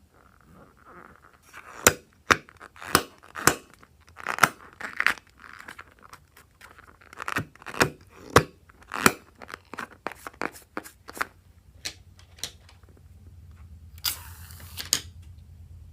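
Slime being squished and pulled by hand, giving an irregular run of sharp sticky clicks and pops, then a brief crinkling rustle near the end.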